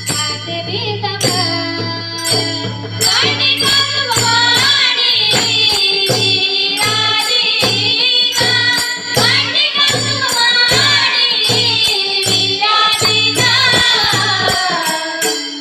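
Marathi devotional bhajan: a voice sings a melody that glides up and down over drum strokes at an even beat, about two a second, with jingling hand percussion.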